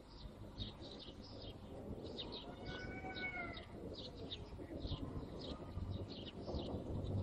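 Small birds chirping in quick, repeated short notes over a low background rumble, with a single pitched call rising and falling about three seconds in.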